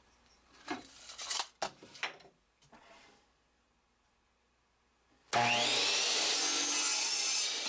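A board being handled, with a few knocks and rubs, then about five seconds in an electric saw starts up with a rising whine, cuts through the wood for about two seconds, and winds down with a falling whine at the end.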